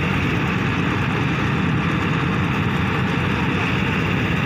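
Excavator diesel engine running steadily under load as its arm works.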